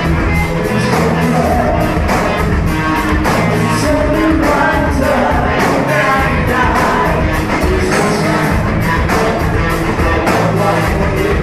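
A rock band playing live: a singer over electric guitars, bass and drums, with steady drum hits driving the song.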